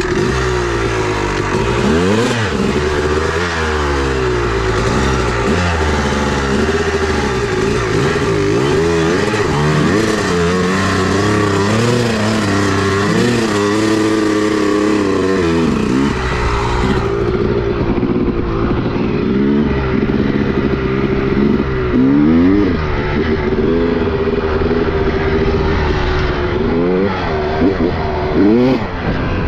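Two-stroke dirt bike engine running under way, its pitch rising and falling over and over as the throttle is worked.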